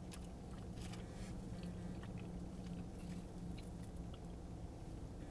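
A person chewing a mouthful of battered fried fish with tartar sauce, with scattered soft mouth clicks, over a steady low hum.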